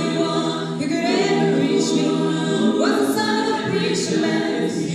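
Vocal ensemble singing held chords in several parts, with a woman's lead voice sung into a microphone.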